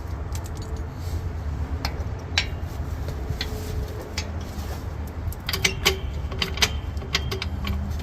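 Metal tools and parts clinking and clicking in quick, irregular knocks, busiest in the last few seconds, over a steady low rumble; the work of changing the rear trailing-arm bushing on a Ford Escape.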